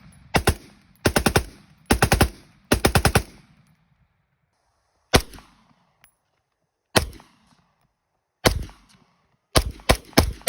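Gunfire: three rapid strings of about four shots each, then single shots a second or two apart and a last quick group of four near the end, each shot ringing out with a short echo.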